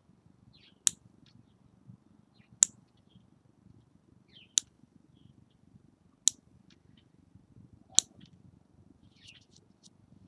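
Metal lever-type fingernail clipper snapping through fingernails: five sharp clicks, about one every second and a half to two seconds, with softer ticks and scrapes between cuts.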